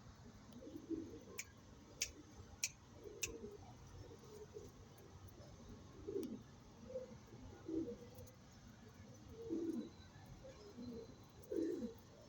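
Domestic pigeons cooing, low falling coos repeated every second or two. Four sharp clicks come in quick succession between about one and three seconds in.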